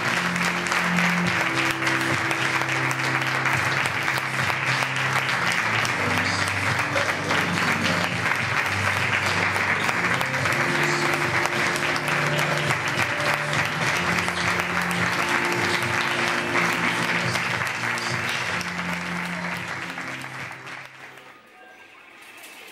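Audience applauding, a dense patter of clapping, with music of sustained low notes underneath. Both fade out near the end.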